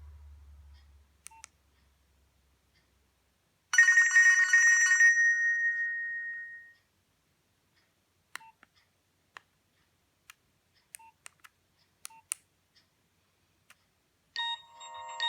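Nokia 2610 mobile phone playing ringtones. A few seconds in, a loud ringtone sound with a strong high tone starts and fades away over about three seconds. Scattered short keypad clicks and brief beeps follow, and near the end a new ringtone melody begins.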